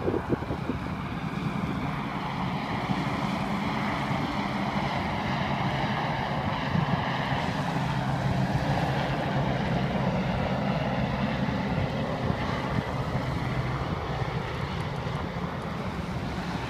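Large helicopter flying low overhead, its rotors and engines running steadily. The sound grows louder toward the middle and eases off near the end as the helicopter moves away.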